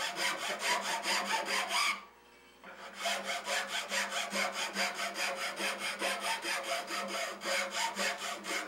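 Round file rasping back and forth in the spiral groove of a wooden spindle held still on the lathe, in quick, even strokes. The filing stops briefly about two seconds in, then carries on.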